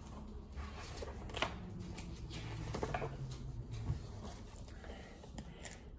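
Pages of a large softcover picture book being turned and handled: a few faint paper rustles and soft taps over a low room hum.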